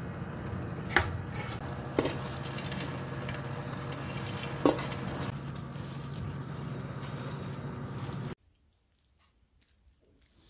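Glass noodles, fish cake and vegetables being tossed and stirred in a metal pot on an induction cooktop. There are wet squishing sounds and three sharp clicks of a utensil against the pot over a steady low hum. The sound cuts off to near quiet about eight seconds in.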